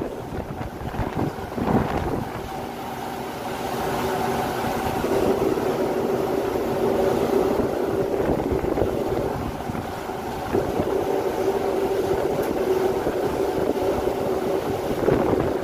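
Steady wind rushing over the microphone on the open deck of a ship under way, with a constant low hum from the ship's machinery and the wash of the sea along the hull.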